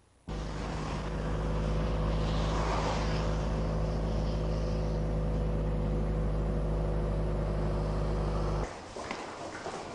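A motor vehicle's engine running with a steady low hum. It starts abruptly and cuts off suddenly about a second before the end.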